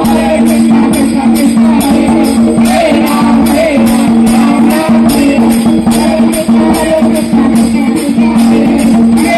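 Hindu devotional music played loud over a PA, with a held drone and a singing voice. Metal hand cymbals keep a steady beat of about three strikes a second.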